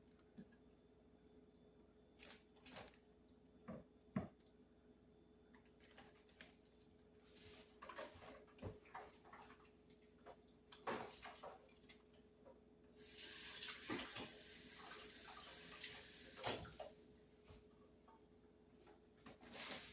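Faint kitchen handling sounds: soft scattered knocks and clicks as raw chicken breasts go into a plastic zip-top bag of marinade. About thirteen seconds in, a steady hiss runs for a few seconds and then stops.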